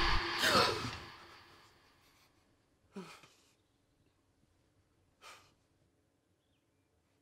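A loud rushing noise dies away over the first second. Then a man gasps once, his voice falling in pitch, about three seconds in, and lets out a short breath about two seconds later, as if waking with a start.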